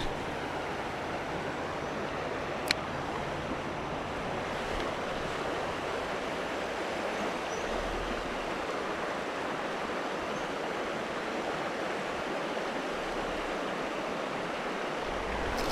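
Steady rush of river water. A single sharp click sounds nearly three seconds in.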